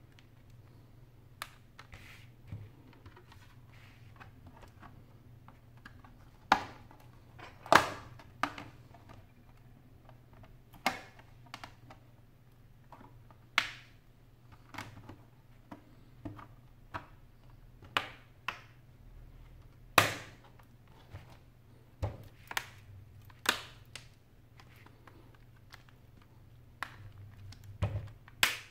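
Plastic back cover of a Samsung Galaxy Note 10.1 (N8000) tablet being pressed onto its frame, its clips snapping into place. Sharp, irregular clicks, some of them loud.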